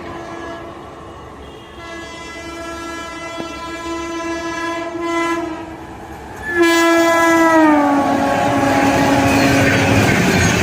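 Indian Railways WAP-7 electric locomotive sounding a long multi-tone horn as it approaches at speed. A second, louder blast drops in pitch as the locomotive passes, and the rush and clatter of the express's coaches running through follow.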